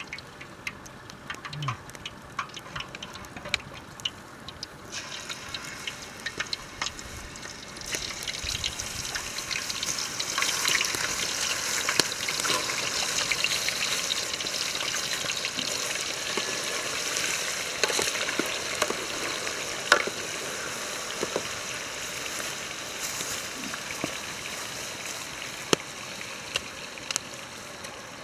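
Chicken pieces sizzling as they go into hot oil in a pot over a wood fire: the sizzle starts about five seconds in, grows louder as more pieces go in, then slowly dies down. Sharp crackles and pops from the burning wood come throughout.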